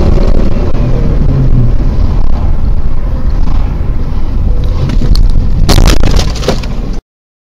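Dashcam audio from inside a moving car: a loud, steady low rumble of engine, road and wind. About six seconds in, a sudden cluster of sharp crashing impacts from a collision with a car cutting across in front. A few more knocks follow, then the sound cuts off suddenly.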